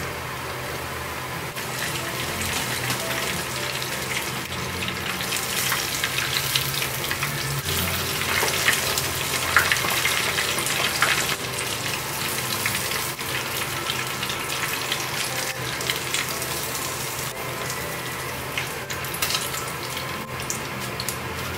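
Hot oil sizzling in a frying pan as breaded fish fries, with scattered crackles and pops. It swells about two seconds in, is busiest around the middle and crackles sharply again near the end.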